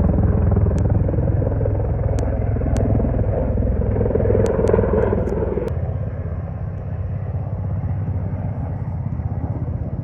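Helicopter rotor and engine, a steady low rumble with rapid beating, easing off somewhat a little past halfway through.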